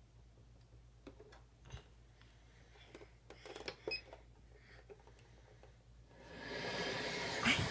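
Soft clicks and taps of small buttons being pressed on a little black electronic box, with a short electronic beep about four seconds in. About six seconds in, a steady hiss comes on and rises to become the loudest sound.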